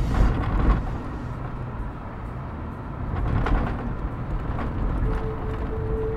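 Toyota Prado 120 four-wheel drive driving over soft sand dunes, heard from inside the cabin: a steady low rumble of engine and tyres, with a few knocks as the body jolts over bumps, the loudest in the first second.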